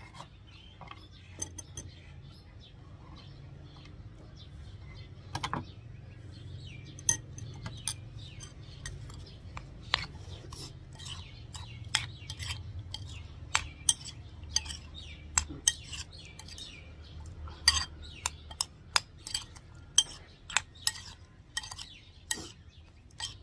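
Metal spoon clinking and scraping against a ceramic bowl as sliced green mango is tossed in shrimp-paste chili sauce. The clinks are irregular, sparse at first and coming thick from about seven seconds in.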